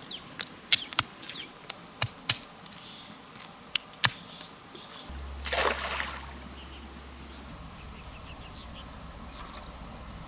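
Golden apple snails tossed into pond water as turtle bait, landing in a string of sharp plops and splashes, then one bigger splash about five and a half seconds in.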